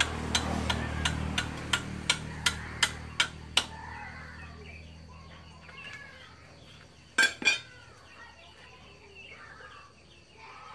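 Machete blade striking the top of a green bamboo pole to split it into prongs: about a dozen quick sharp knocks, roughly three a second, over the first four seconds, then two louder knocks close together about seven seconds in.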